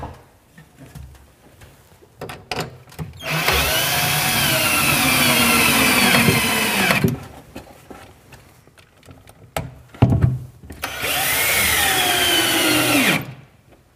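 Cordless drill driving anchor screws through the back of a plywood cabinet into the wall studs: two long runs of the motor, the first about four seconds and the second about two, each with a whine that drops in pitch at its end. A few light knocks come before and between the runs.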